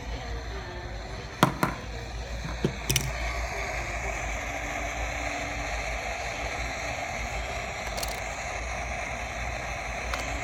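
Handling noise from professional camcorder gear: a few sharp clicks and knocks over a steady hiss, with a cluster of clicks in the first three seconds and one more about eight seconds in.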